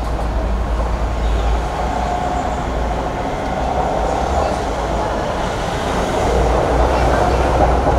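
Steady low rumbling background noise with a hiss over it, growing a little louder near the end.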